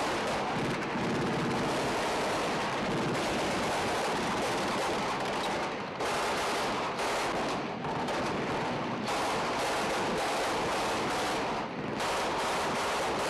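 Sustained heavy small-arms gunfire, rapid automatic fire and shots packed close together with no real pause, dipping briefly about six seconds in and again near the end.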